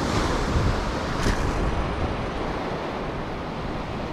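Wind rumbling on the microphone over the steady wash of ocean surf.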